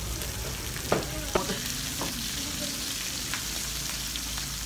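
Pork belly (samgyupsal) sizzling steadily on a tabletop grill pan, with a few sharp clicks of metal tongs on the pan in the first few seconds.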